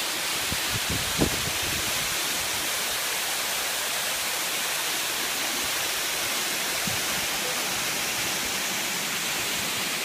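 Waterfall pouring down a rock face into a pool: a steady rushing hiss of falling water. A few brief low knocks about a second in, one of them sharp, and another at about seven seconds.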